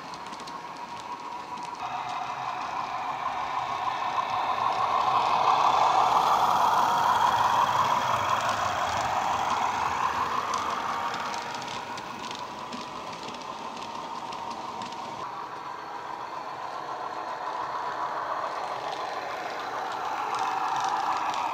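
Soundtraxx Econami sound decoder playing a Class 31 diesel engine through the small speaker of a Hornby OO gauge model locomotive as it runs with a freight train. The engine note climbs and swells in the first few seconds, drops back about halfway through and rises again near the end.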